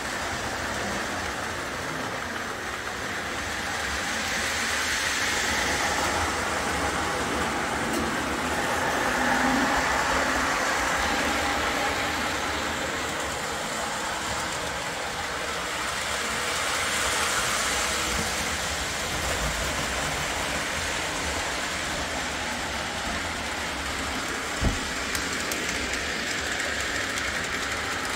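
O-gauge model train, a Santa Fe Alco locomotive pulling Lionel cars with die-cast trucks, running around a layout: motor and wheels rolling on the track, growing louder and softer as it circles, with one sharp knock near the end.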